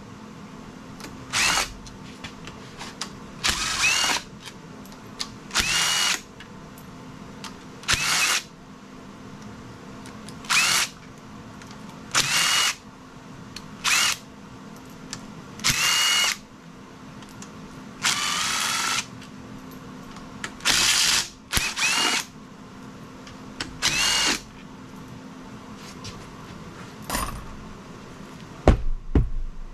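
A DeWalt cordless power tool with a socket on an extension runs the oil pump bolts out of a BMW N55 engine block in about a dozen short bursts, each under a second. Several bursts end with a rising whine. A sharp knock near the end is the loudest sound.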